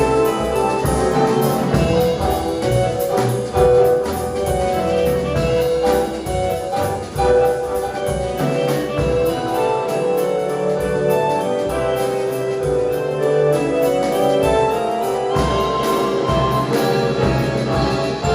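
Ensemble of two Roland Atelier electronic organs, piano and drum kit playing a full arrangement, the organs carrying sustained orchestral and brass-like voices over the piano and drums.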